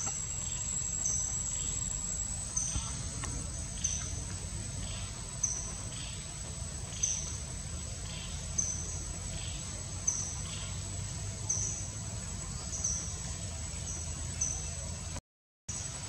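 Forest ambience: a steady high-pitched insect drone with short chirps repeating about once a second, over a low rumble. It drops out briefly near the end.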